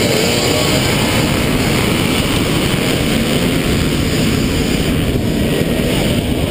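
Onboard riding noise from a 2012 Zero MX electric dirt bike moving at speed on a muddy track: a steady rush of wind, knobby tyres on dirt and the electric drivetrain, with no engine exhaust note.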